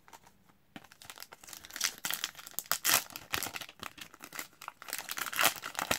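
A 2021-22 Upper Deck Tim Hortons Team Canada hockey card pack's wrapper crinkling and tearing as it is pulled open by hand. The irregular crackling starts about a second in and keeps on.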